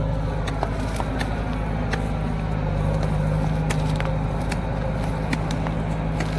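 Heavy-machinery diesel engine running steadily under a continuous low drone, with scattered sharp clicks and knocks over it.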